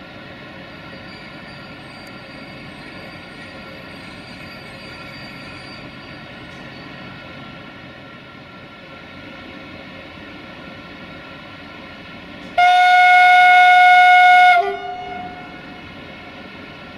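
Locomotive horn sounding one steady blast of about two seconds, loud against the locomotive's steady running noise.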